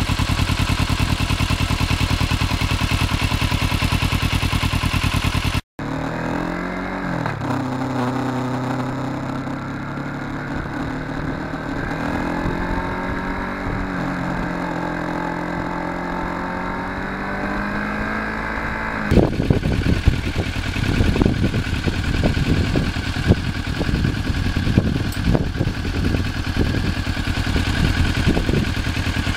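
Motorcycle engine running during a ride, its pitched note rising and falling with throttle and speed. The sound cuts abruptly twice. The last third is a rougher, gusty noise with frequent knocks under the engine.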